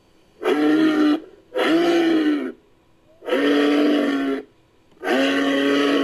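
Imagined call of Bramatherium, an extinct giraffid, made as a sound effect by blending camel, moose and bull recordings: four deep, pitched grunting calls of about a second each, separated by short gaps, each rising a little in pitch and then falling.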